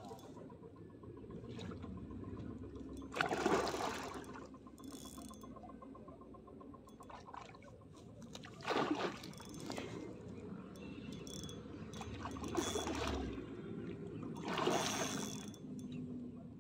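A hooked fish thrashing at the surface as it is played in, splashing in several short, loud bursts a few seconds apart.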